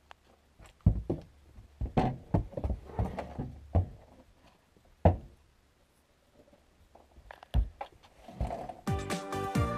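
A horse's hooves knocking and thudding irregularly on wooden boards as it steps through a narrow doorway, with a few louder bumps. Music with a steady beat starts about a second before the end.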